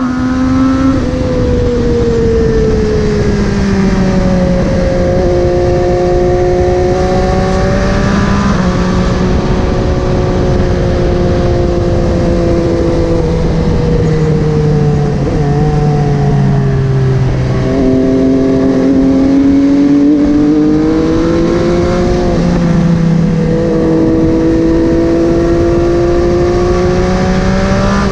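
MV Agusta Dragster 800's three-cylinder engine through a QD Power Gun exhaust, riding on the road: the engine note rises and falls repeatedly as the bike accelerates, shifts gear and rolls off, over a haze of wind noise.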